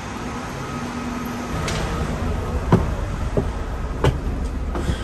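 A bus engine running with a low rumble that grows heavier about two seconds in, with four sharp knocks or rattles spread over the following seconds.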